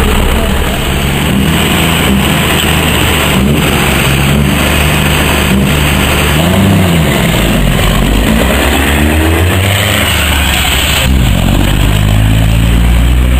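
Heavy truck diesel engines running loud, their pitch climbing and dropping several times as they rev and accelerate.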